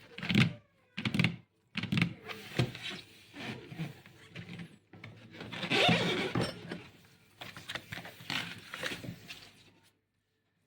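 Packaging being handled and opened: a series of irregular rustles and knocks, the busiest stretch in the middle, stopping shortly before the end.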